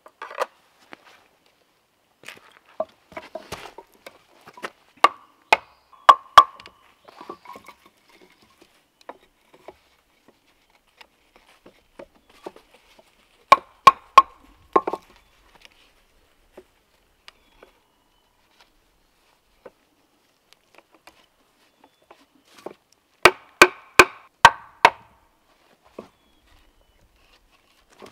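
Hard wooden knocks of a mallet striking wood, in groups: a handful of blows about five to six seconds in, four more about halfway through, and a quicker run of about six near the end.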